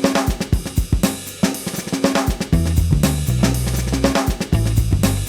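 Background music: a drum kit playing a steady beat with snare, hi-hat and cymbal, and a bass line that comes in about halfway through.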